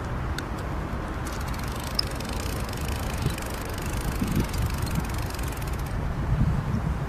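Spinning reel being cranked to retrieve a small spoon lure, a fine rapid clicking that starts about a second in and stops near the end, over a steady low rumble.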